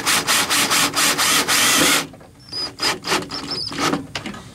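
Power drill driving a self-tapping screw through a ring terminal and star washer into the car's sheet-metal body, a harsh grinding rasp as the screw cuts its way in. It stops abruptly about two seconds in, followed by several short bursts as the screw is run down tight.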